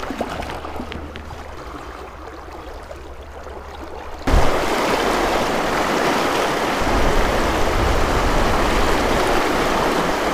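Shallow river water flowing over stones, a steady rush. About four seconds in it becomes suddenly much louder and fuller: the rush of a fast, broken riffle.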